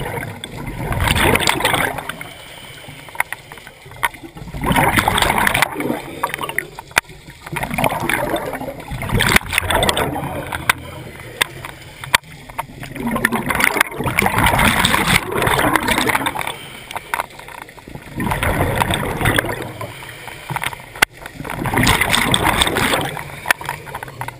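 Scuba diver breathing underwater through a regulator: a rush of exhaled bubbles every four to five seconds, with quieter hiss and a few small clicks between.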